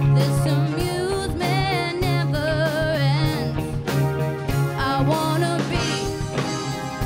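Live band music with a woman singing lead, her held notes wavering in vibrato, over sustained instrument chords and regular drum hits.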